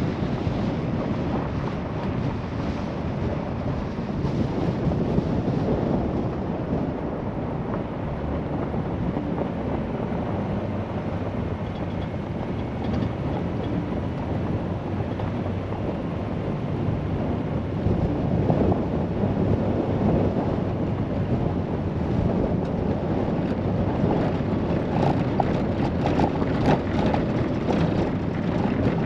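Vehicle driving on a dirt and gravel road: steady tyre and road rumble mixed with wind noise on the microphone, with gravel crackling and a rougher rattle over washboard ripples near the end.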